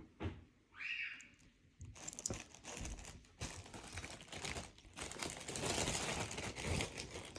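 Crinkling and rustling as necklaces are handled: a few separate clicks at first, then from about two seconds in a dense run of fine crackles.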